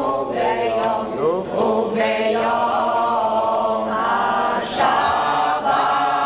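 A choir of voices singing together in long, held notes.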